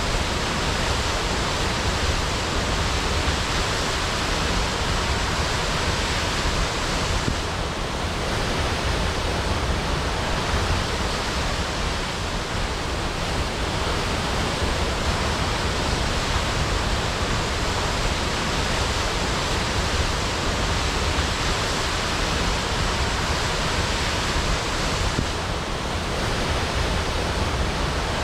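Waterfall crashing: a steady, dense rush of falling water with no breaks.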